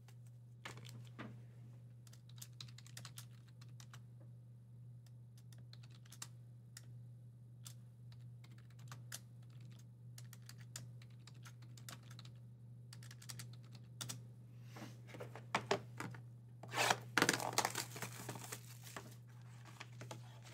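Scattered light clicks and taps at a desk, then about seventeen seconds in a louder spell of tearing and crinkling as a trading-card hobby box is unwrapped and opened. A steady low hum runs underneath.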